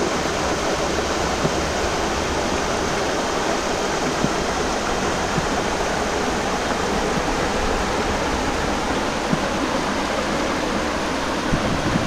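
Shallow hill stream rushing over rocks: a steady, even rush of water.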